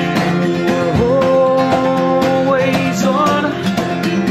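Live acoustic song: a strummed acoustic guitar with cajón beats, and a voice that holds one long sung note from about a second in, then slides through shorter phrases near the end.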